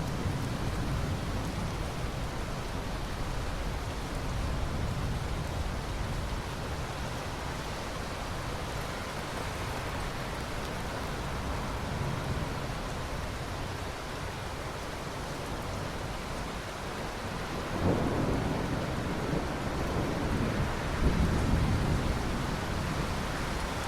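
Steady heavy rain with low rolling thunder rumbling underneath. Thunder swells louder with a sharp onset about three-quarters of the way through, and rolls again a few seconds later.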